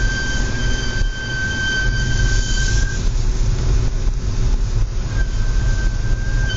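Audi S4 B8 brakes squealing: a steady high-pitched whistle with overtones that breaks off about three seconds in and starts again about two seconds later, over low rumbling driving noise. The squeal comes with low outside temperature.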